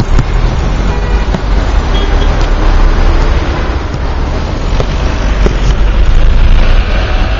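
Dense city traffic heard from a car moving slowly within it: a steady low rumble of engines and tyres.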